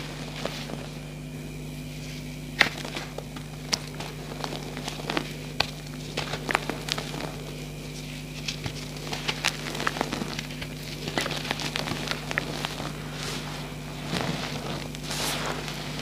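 Hands crushing gel-reformed gym chalk blocks into loose chalk powder: irregular crisp crackles and crunches, with a softer powdery sifting near the end as handfuls fall. The blocks crumble messily because they were reformed with gel. A steady low hum runs underneath.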